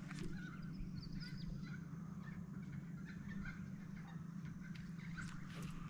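Birds calling in scattered short chirps over a steady low hum from the boat's small electric motor.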